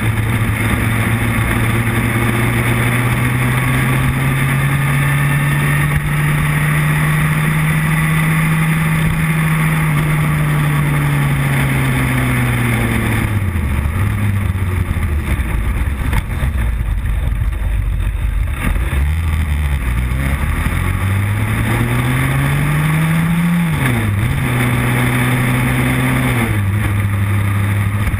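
Motorcycle engine running under way, with wind noise over the microphone. The engine note falls away about 13 seconds in as the bike slows, climbs steadily under acceleration, then drops sharply with a gear change about 24 seconds in and settles.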